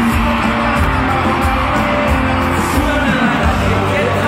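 Live pop band with a lead singer playing loudly in an arena, heard from the crowd, with steady music and singing throughout.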